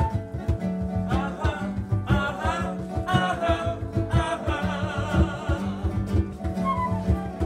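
Live acoustic band playing a song: strummed acoustic guitar over a steady hand-drum beat. A flute phrase opens it, a man sings from about a second in, and the flute comes back near the end.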